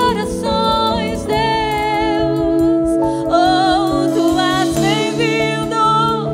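Gospel worship song: a woman's voice sings long held notes with vibrato over instrumental accompaniment.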